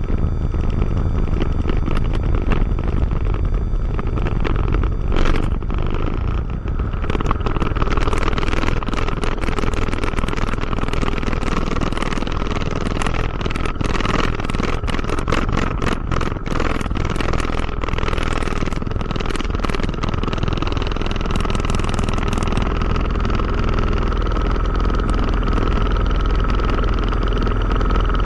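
Diamond DA20-C1's Continental IO-240 four-cylinder engine at full takeoff power, heard inside the cockpit as a steady drone over a low rumble. A rapid rattle from the wheels on the runway comes in a few seconds in and dies away after about 20 seconds as the aircraft lifts off.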